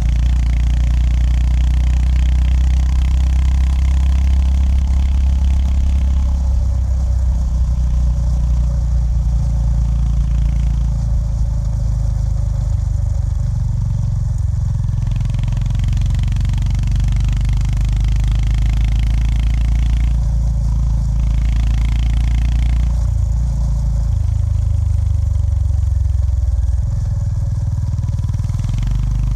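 Honda GB350S's air-cooled single-cylinder engine running under way. Its low engine note shifts up and down several times as the throttle and gears change, over a steady hiss.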